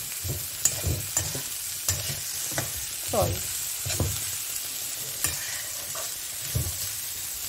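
Steel spatula stirring and scraping diced vegetables around a steel kadhai over high heat, with irregular clanks against the pan over a steady frying sizzle.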